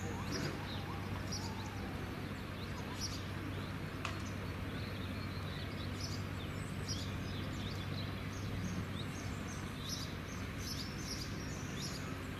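Small birds chirping in short, repeated calls throughout, over a steady low hum.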